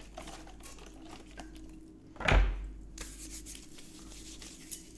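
A trigger spray bottle squirts once, a short loud burst about two seconds in, spraying down nitrile-gloved hands to clean them. Small clicks and handling come before it, and the gloved hands rubbing together make a faint rustle after it.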